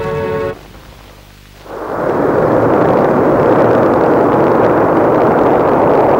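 A held music chord cuts off about half a second in. After a short lull, a Proton launch vehicle's first-stage rocket engines start up at liftoff and run as a loud, steady, dense rumble for the rest of the clip.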